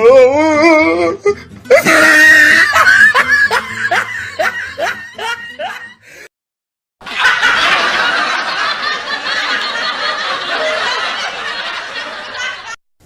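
Laughing sound effects: a wavering, quavering laugh, then a run of quick "ha-ha" pulses. About six seconds in it cuts to silence for a moment, then a steady noisy wash runs for several seconds.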